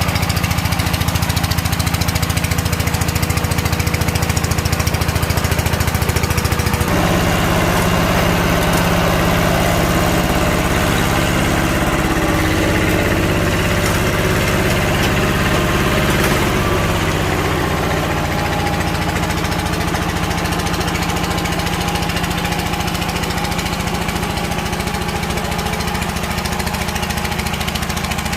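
Two-wheel walking tractor's single-cylinder diesel engine running steadily while tilling soil. Its note shifts about seven seconds in and eases slightly later on.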